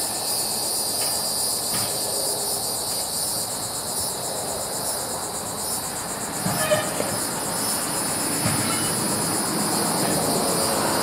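Grapple truck's engine and hydraulics running as its grapple works down in a gondola of concrete cross ties, with a few short knocks about six and a half and eight and a half seconds in as the grapple closes on the ties. A steady, pulsing high buzz of insects sits above it.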